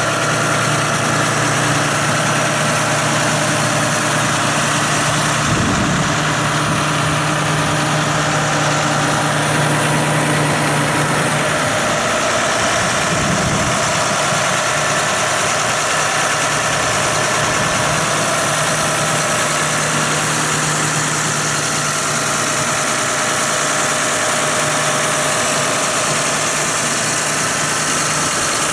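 John Deere 6215R tractor's six-cylinder diesel engine idling steadily.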